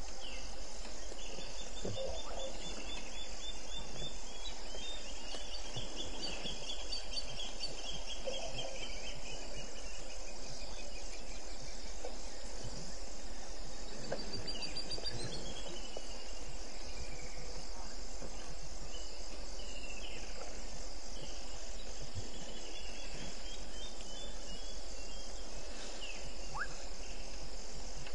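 Night chorus of crickets and other insects: a steady, high, pulsing trill throughout, with other trills swelling and fading over it and a short rising call near the end, above a low steady hum.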